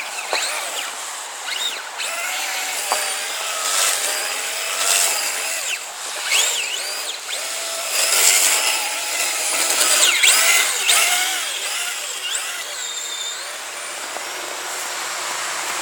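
Electric motor and drivetrain of a Traxxas Blizzard radio-controlled tracked snow vehicle whining as it is driven through snow. The whine rises and falls in pitch over and over as the throttle is squeezed and let off.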